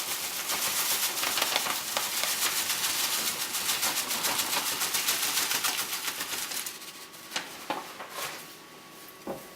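Lavender flowers being shaken through a paper funnel into a still's column: a dense rustling crackle of many small clicks for about seven seconds, then a few separate taps near the end.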